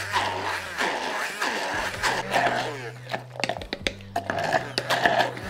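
Immersion blender running in a glass jar, puréeing a thick parsley pesto, over background music.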